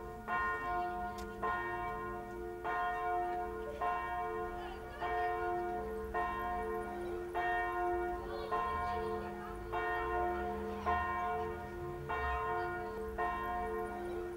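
Church bell tolling steadily, struck a little more than once a second, with each stroke ringing on into the next.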